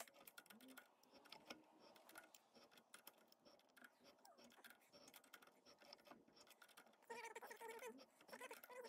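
Near silence with faint clicks and scraping as a tap is turned by hand into a metal nut held in a lathe chuck, cutting a 3/4-16 thread. The scraping grows a little louder near the end.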